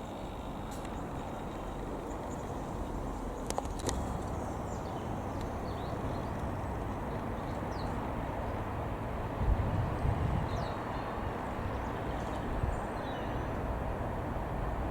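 Outdoor ambience: a steady low rumble with a few faint bird chirps, a couple of clicks about four seconds in, and a brief low buffet on the microphone about ten seconds in.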